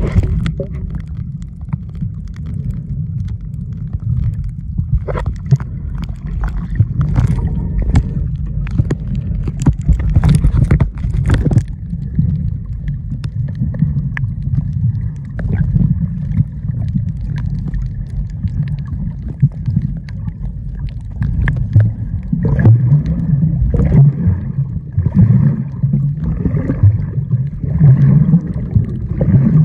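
Muffled underwater rumble of water moving around a submerged camera, with scattered sharp clicks in the first half and, in the last third, a softer rush that pulses about once a second.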